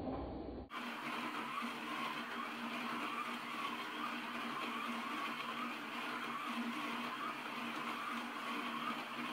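Scalextric velodrome slot cars lapping the banked oval track, their small electric motors whirring steadily and wavering a little in pitch as the cars circle.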